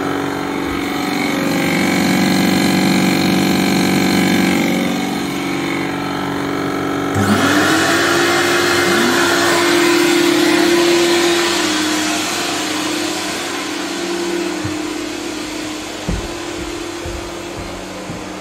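Portable carpet extraction machine running: at first a humming motor, then about seven seconds in its vacuum motor is switched on, spinning up with a rising whine into a loud, steady rush of air. A few low knocks near the end.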